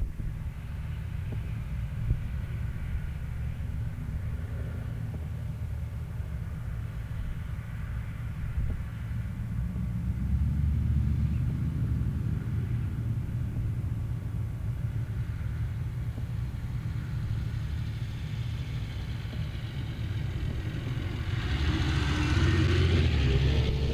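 Car driving on a snowy road: a steady low rumble of engine and tyres that swells about ten seconds in and again near the end, when a rushing hiss joins it and a short rising tone sounds.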